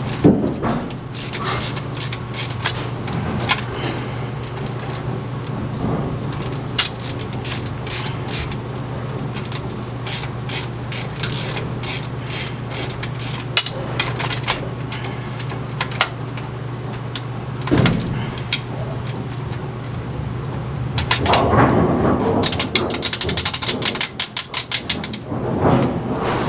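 Bowling pinsetter machinery: a steady motor hum with repeated mechanical clicks and clatter, and a quick run of clicks about 23 seconds in.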